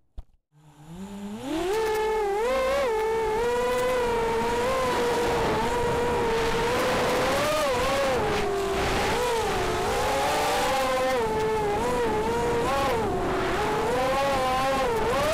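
Brushless motors and propellers of a 180 mm FPV racing quadcopter (Armattan F1-4B, Cobra 2204 2300 KV motors, HQProp 4x4.5 props) whining, heard from the onboard camera. After a near-silent first second the whine rises in pitch, then holds, wavering up and down.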